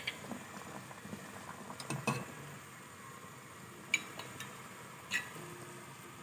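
A metal utensil knocking and clinking against a cooking pot a few times, short light knocks, over the faint steady bubbling of goat-rib broth simmering.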